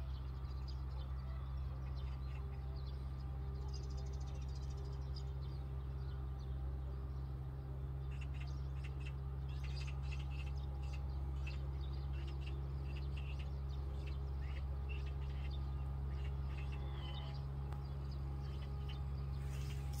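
Many short, high chirping calls from small animals, growing denser from about eight seconds in, over a steady low hum.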